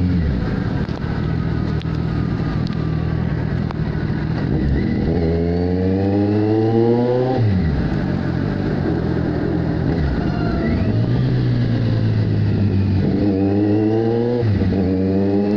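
2015 Kawasaki Z1000's inline-four engine running through an SC-Project aftermarket exhaust, heard from the rider's seat while riding. The revs climb about five seconds in and then fall away sharply. The engine then runs steadily before climbing twice more near the end, with another sharp drop between the two climbs.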